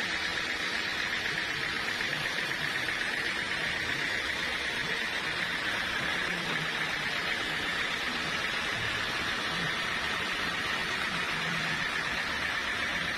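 Sawmill saw cutting through teak wood: a steady, unbroken hiss with a high whine running through it.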